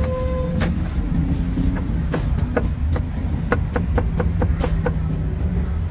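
Irregular sharp knocks and clacks, some in quick runs, over a steady low rumble of street traffic, with a brief beep at the start.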